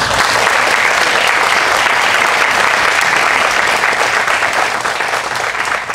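A room full of people applauding, dense steady clapping that starts suddenly and tapers slightly near the end.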